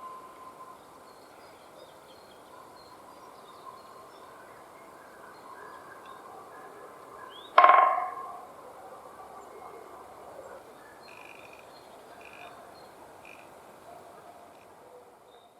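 A woodpecker drumming once, about halfway through: a loud, fast roll of beak strikes on a dry tree trunk that fades within a second, the spring drumming that signals to other woodpeckers. Faint songbird chirps sound around it.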